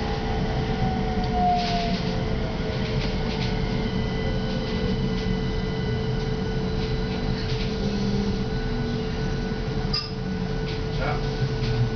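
CAF Urbos A35 low-floor tram running, heard from inside the passenger car: a steady rumble with a constant whine, and a second whine that glides down in pitch over the first few seconds, with a few light clicks and rattles.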